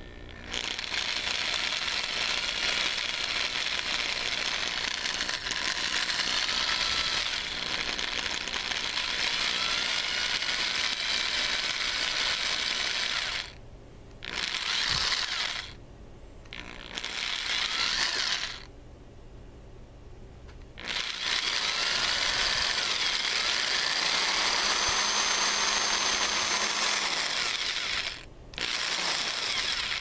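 Electric drill motor running in bursts as the trigger is pressed and released: one long run of about thirteen seconds, then four shorter runs with brief stops between them.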